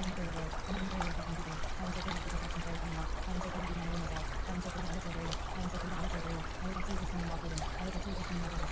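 Steady running-water sound like a stream pouring, with a low hum beneath it that steps between two pitches every half second or so.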